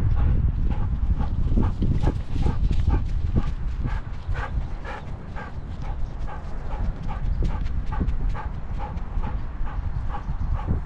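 Belgian Malinois moving with a camera strapped to its back: a quick, regular pulse of breathing and strides about three times a second, over a low rumble of wind and harness movement on the microphone.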